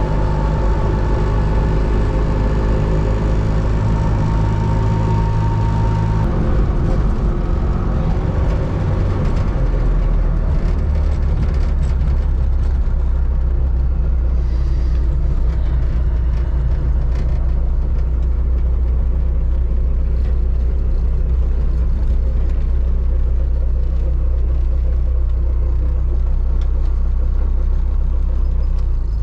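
Trabant 601S's air-cooled 594 cc two-stroke two-cylinder engine running while driving. Its note drops about six seconds in, then holds steady at a lower pitch.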